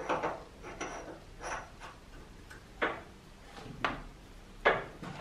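A steel nut being tried onto a lathe's threaded spindle nose: a handful of sharp metal clinks and knocks at uneven intervals, the loudest near the end. The nut's 3 mm-pitch thread does not match the spindle's M45x3.5 thread, so it will not screw on.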